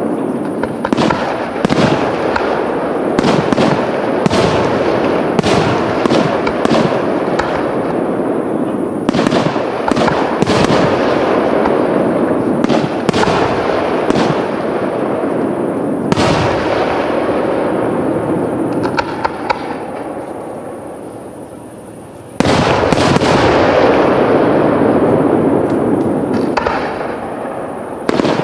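Aerial firework shells bursting one after another in a dense, loud barrage of bangs over a continuous rumble. The barrage thins and fades for a few seconds past the middle, then a sudden loud volley starts it up again about three-quarters of the way through.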